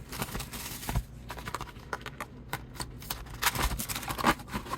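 A trading card box being opened and its packs and cards handled: scattered crinkles, taps and scrapes of cardboard and wrappers, with a denser run of rustling about three and a half seconds in.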